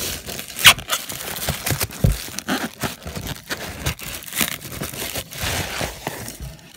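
Plastic packing bag being handled and pulled about by hand: continuous crinkling and rustling with sharp crackles, the loudest crackle about two-thirds of a second in.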